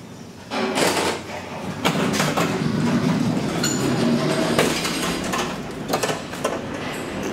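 Old traction elevator's car door slides open about half a second in, letting in the loud din of the metro station: a steady rumble with rattles and clicks, typical of a metro train at the platform, plus footsteps on the hard floor.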